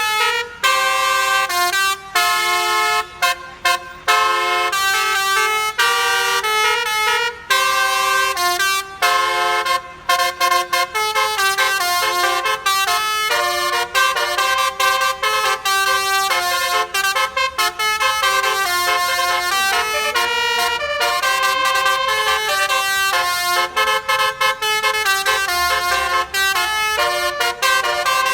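Basuri telolet bus horn, a multi-tone air horn, playing a tune as a string of loud pitched horn notes that step up and down in pitch. It breaks off briefly a few times early on, then plays almost without a break.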